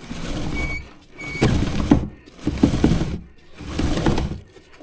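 Motorcycle drive chain clattering over its sprockets and through a chain-cleaning brush as the rear wheel is turned by hand, in four short spins with pauses between them. The chain is wet with kerosene and being scrubbed clean.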